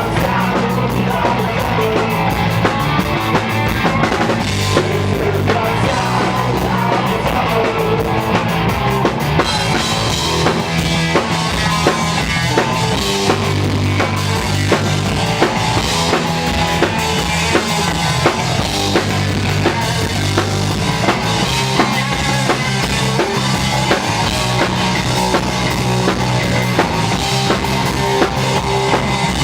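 Punk rock band playing live, with a drum kit driving a steady beat under a held bass line.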